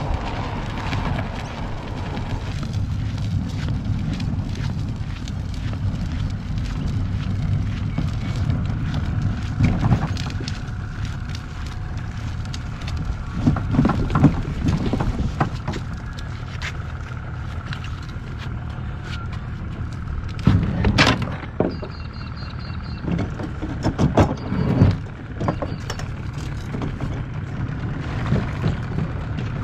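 A motor running steadily with a low rumble, broken by several louder knocks and bumps, the most prominent around 14, 21 and 25 seconds in.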